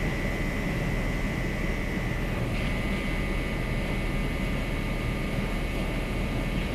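Inclined belt conveyor running under load: a steady mechanical drone and rumble with a thin, steady high whine.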